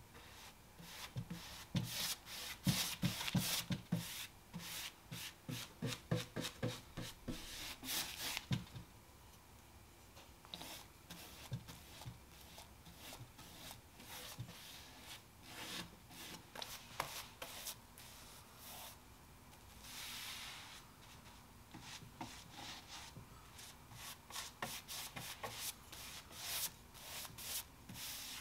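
Paintbrush strokes swishing back and forth over a painted wooden cabinet as a thick wet coat of water-based polyacrylic top coat is brushed on. The strokes come in quick, uneven runs, thickest in the first several seconds and again near the end, with fewer in between.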